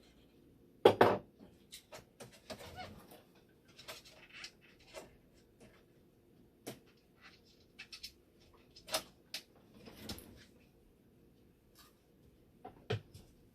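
Scattered clicks and light knocks, the loudest about a second in, over a faint steady hum.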